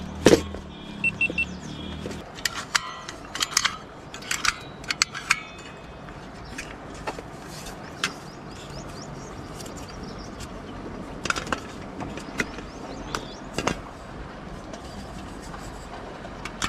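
Scattered metal clicks and clinks from handling a compact folding camping gas stove, its metal pot-support arms being swung out and snapped into place, with a quick run of clicks a few seconds in. Background music briefly at the start.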